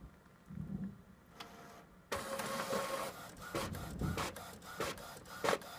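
Ricoh dye-sublimation printer printing a transfer sheet. A low thump comes just under a second in. From about two seconds in the machine runs with a mechanical whir and a steady hum, broken by repeated sharp clicks, the loudest near the end.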